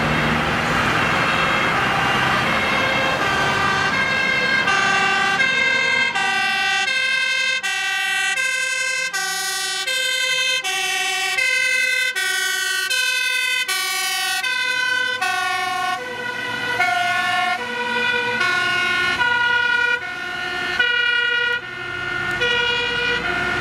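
Fire engine's two-tone siren alternating between a high and a low note, each held about half a second, growing clearer as the truck approaches and passes, over engine and road traffic noise.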